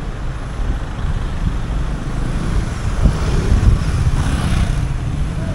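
Street traffic, with a motorcycle passing close by about three seconds in; its noise swells and then fades. A low rumble runs underneath.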